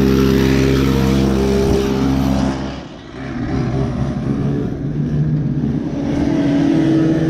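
A racing engine running at a steady high speed, then dropping away sharply about three seconds in. Rougher engine sound follows, and near the end a steady engine note comes back, rising slightly in pitch.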